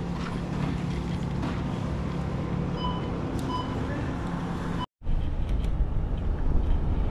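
A steady hum with faint background voices and a few short electronic beeps. After an abrupt cut near five seconds, low rumble and wind noise from a moving vehicle.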